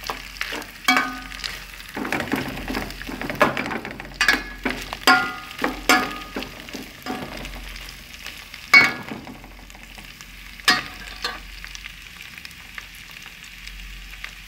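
A plastic spoon scraping and knocking around an enamel pot as sliced onion and corn kernels are stirred, some strokes making the pot ring briefly, over a steady sizzle of frying on low heat. The stirring stops about three-quarters of the way through, leaving only the sizzle.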